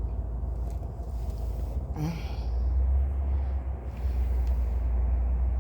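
Steady low rumble outdoors, with a brief faint higher sound about two seconds in.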